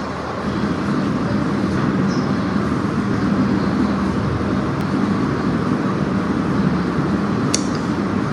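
Steady low mechanical hum over an even noise, with a short sharp click near the end.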